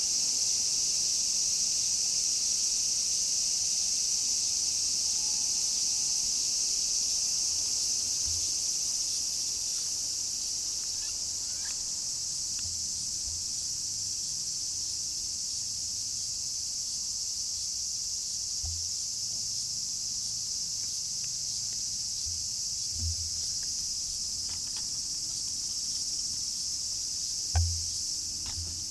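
Steady, high-pitched chorus of insects in the grass, with a few soft low thumps and one brief knock near the end.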